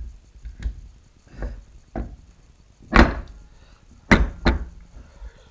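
Heavy steel parts of a 10-inch three-jaw scroll chuck knocking together as the chuck body is handled and seated by hand: a series of about six dull knocks, the loudest about three seconds in.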